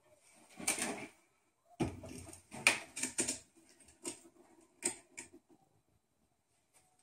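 Metal hand injector knocking and clicking against a metal bait mold and the table as it is set in place and its plunger pushed down to inject plastisol. The knocks are irregular, clustered around the middle, with a few single clicks after.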